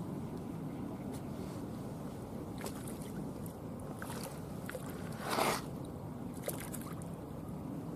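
Small waves lapping steadily, with one short splash about five seconds in as a hooked fish thrashes at the surface.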